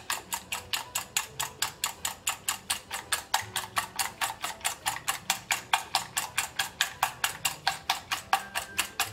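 Wire whisk beating eggs in a stainless steel bowl, its wires clicking against the metal in a fast, even rhythm of about five strokes a second.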